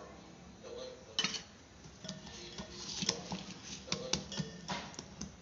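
Hand working oiled wheat-flour dough in a stainless steel bowl, with a series of irregular clicks and knocks from the bowl starting about a second in.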